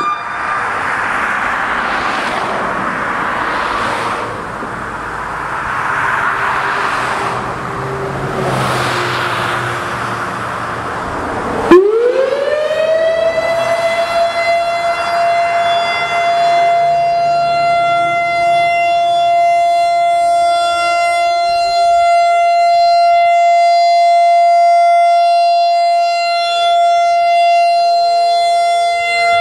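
A rushing noise swells and fades every couple of seconds. About twelve seconds in, after a sharp click, the Turkey Point nuclear plant's outdoor warning siren winds up quickly in pitch and holds one loud, steady tone: a scheduled test of the emergency siren.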